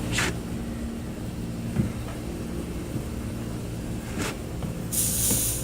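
A steady low mechanical hum, like a vehicle or machine running, with short hisses about a quarter second in and about four seconds in, and a longer, louder hiss near the end.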